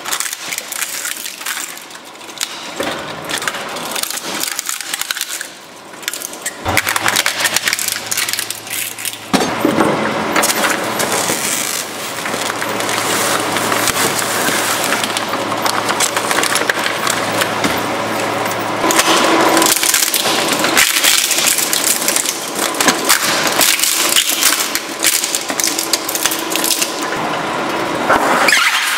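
A twin-shaft shredder crushing a string of objects, with dense cracking and crunching of plastic and other material that changes character at several cuts. A low steady hum runs underneath through the middle stretch.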